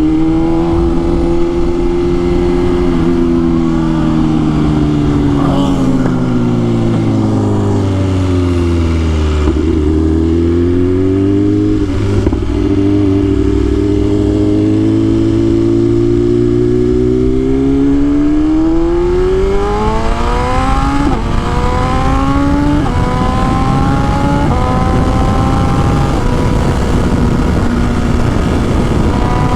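BMW S1000RR inline-four sportbike engine heard onboard: the revs drop slowly as the rider rolls off, then climb steadily under acceleration, followed by several quick upshifts a second or two apart, each a short step down in pitch. Wind rush runs underneath.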